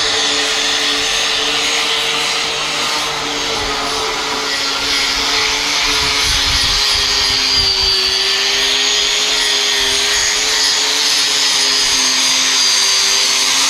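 Hand-held electric grinder running steadily, with a slightly wavering motor whine over dense grinding noise, smoothing body filler over the gate's weld joints. It starts suddenly.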